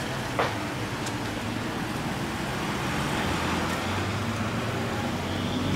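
Street traffic with a motor scooter passing close by, its engine running, over a steady hum of other vehicles. A single sharp click about half a second in.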